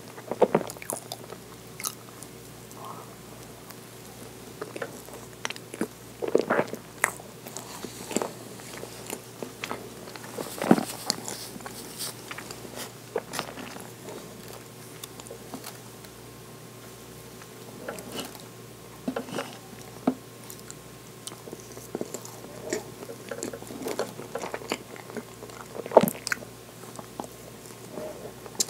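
Close-miked mouth sounds of a person biting and chewing soft chocolate roll cake: irregular moist chews and lip smacks with scattered sharper clicks.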